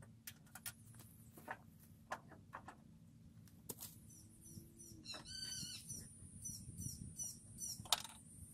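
A bird chirping a quick run of repeated high notes about five seconds in, then fainter chirps, over scattered faint clicks and taps of hands and small hardware working at a truck's sheet-metal fender, the sharpest tap near the end.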